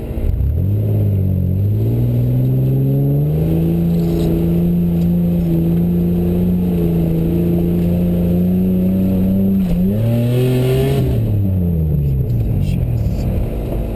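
Mitsubishi Pajero engine revving hard under load on a steep climb. The revs rise within the first couple of seconds and are held high and steady. About ten seconds in they dip and surge briefly, then fall away and pick up again near the end.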